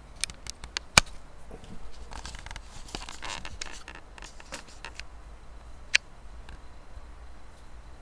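Newspaper crinkling and rustling under puppies wrestling on it, with several sharp clicks early and the loudest click about a second in, a longer crackly stretch in the middle, and one more sharp click near the end.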